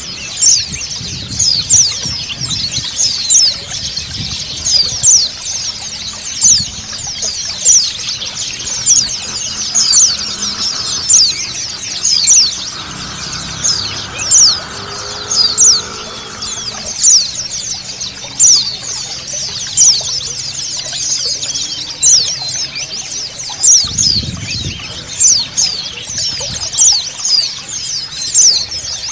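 A flock of white-eyes (pleci) chirping and twittering constantly, with louder sharp chirps about once a second, over steadily running water.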